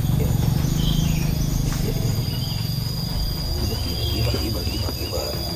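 Outdoor ambience: an insect's steady high-pitched buzz setting in about two seconds in, short scattered chirps of small birds, and a low rumble that is strongest in the first two seconds.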